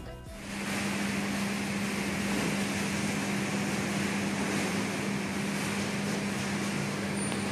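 Steady mechanical hum of a bus terminal: a constant low drone over an even hiss, coming in about half a second in as music cuts off.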